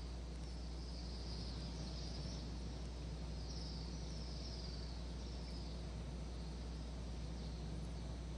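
Faint, short high-pitched bird chirps, several falling calls in quick runs, over a steady low hum in a hushed, open space.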